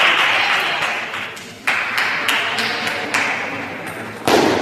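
Spectators applauding in a large hall. The applause dies away over the first second and a half, then breaks out again in short bursts, the loudest near the end. Sharp ticks of table-tennis balls sound in the background.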